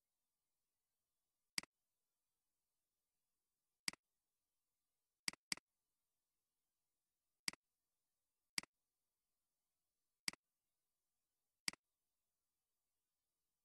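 Computer mouse button clicking: eight short, sharp clicks spaced a second or two apart, with a quick double-click about five seconds in.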